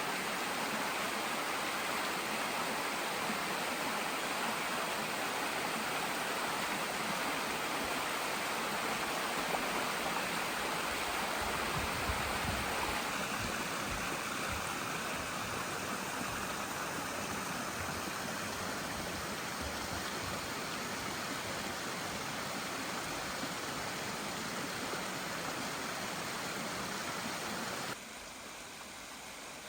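Mountain stream flowing steadily over rocks, an even rushing of water that drops noticeably in level near the end.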